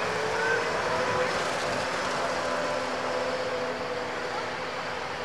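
Engines of a slow line of approaching parade vehicles, a steady hum with a low engine drone.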